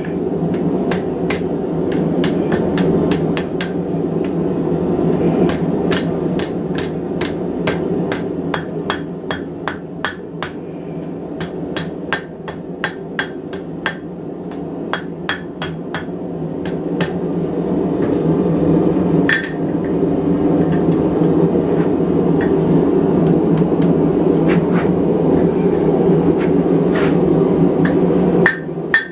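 Hand hammer striking hot mild steel on an anvil, forging a scroll, in runs of about two to three blows a second with short pauses and a brief metallic ring on some blows. A steady low rushing noise runs underneath.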